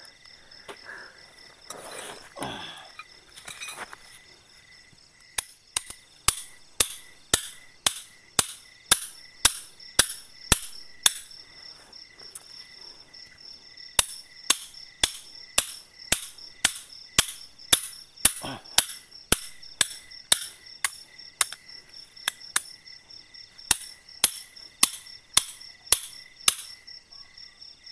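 Tent stakes being hammered into the ground: sharp strikes about two a second, in two runs with a pause of a few seconds between them. A steady chorus of crickets and other insects chirrs behind.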